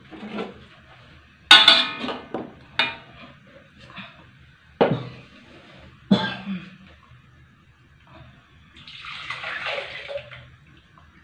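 Metal spatula knocking and scraping against a metal wok while a wet blended spice paste is stirred: several sharp clanks, then a longer scrape near the end.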